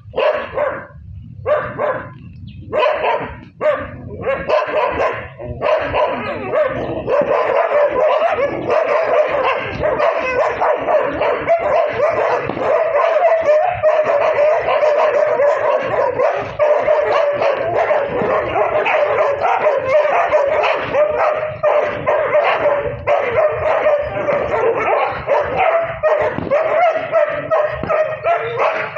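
Many dogs barking. A few separate barks at first, then from about six seconds in a dense chorus of barking and yipping from many dogs at once, overlapping without pause.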